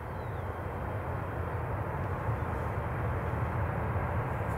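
Jet airliner's engines heard from the runway side during the landing rollout, a steady low rumbling noise that grows slowly louder as the aircraft comes closer.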